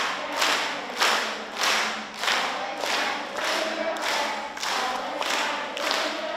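A group of children clapping in a steady rhythm, about two claps a second, while singing along to an echo song.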